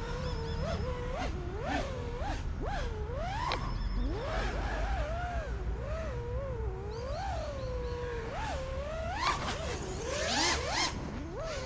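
FPV quadcopter's motors and props whining, the pitch rising and falling constantly with the throttle, with a couple of louder rushes near the end.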